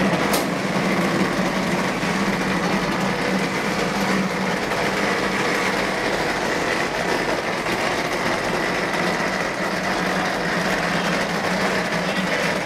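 Automatic wall rendering machine running steadily, its motor driving the plastering carriage up the mast with an even mechanical hum.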